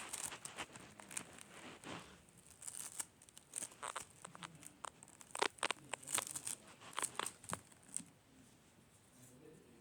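Slime being squeezed and stretched by hand, giving irregular sticky crackles, clicks and small pops that thin out near the end.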